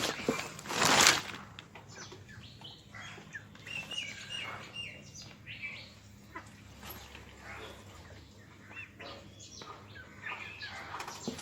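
Chickens making short, repeated chirping calls, after a loud rustle in the first second.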